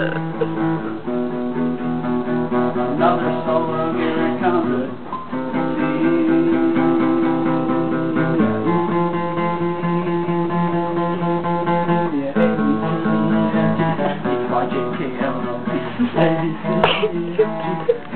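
Guitar strumming chords, the chord changing every few seconds.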